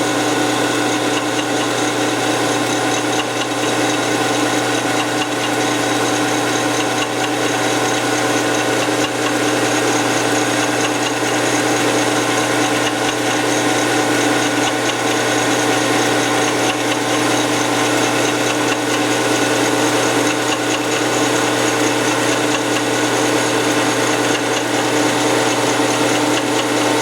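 Metal lathe running steadily while turning down a mild-steel shaft, a constant machine hum with several fixed tones.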